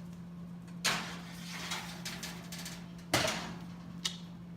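Kitchen oven door opening with a clunk and, about two seconds later, shutting with a louder bang, followed by a short click, as the tray goes in to bake. A steady low hum runs underneath.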